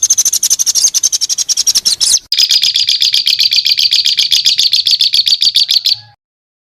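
Songbird giving rapid-fire repeated notes, about ten a second, in two runs: a higher-pitched run, a brief break a little past two seconds, then a lower-pitched run that stops shortly before the end.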